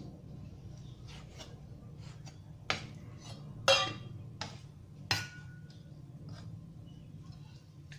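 Chef's knife cutting raw pork and knocking on a wooden cutting board: a few sharp knocks, the loudest about four seconds in, with light ticks between. The knock about five seconds in rings briefly, like metal, as the knife works the pieces toward a stainless steel bowl. A steady low hum runs underneath.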